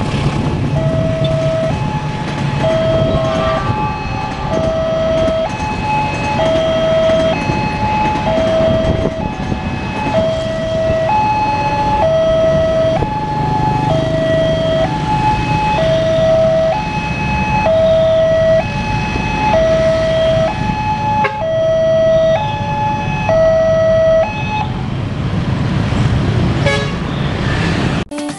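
Railway level-crossing warning alarm sounding a two-tone pattern, a lower and a higher tone alternating about once a second, then stopping near the end. Under it is the low rumble of idling traffic.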